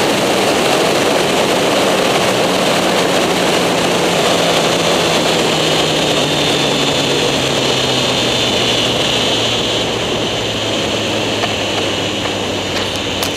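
Sport motorcycle engine under heavy wind rush on the onboard microphone, the engine note falling slowly and steadily as the bike rolls off and slows.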